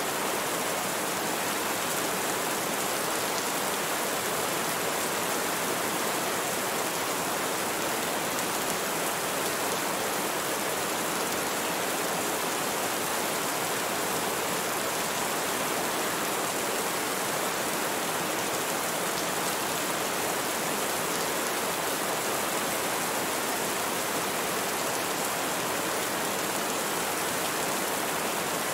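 Steady rain falling, an even hiss that doesn't change through the whole stretch.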